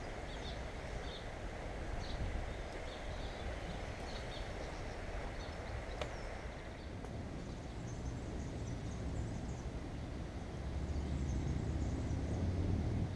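Steady riverside ambience: the rush of flowing river water with small birds chirping over it. A single sharp click comes about halfway through, and a low rumble swells near the end.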